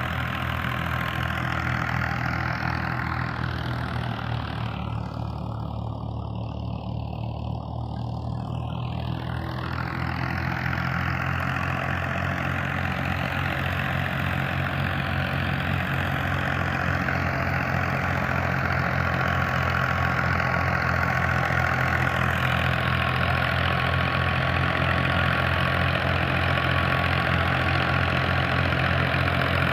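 Engine of harvest farm machinery running steadily at a constant speed, with a rushing mechanical noise over the hum that grows a little louder in the last third.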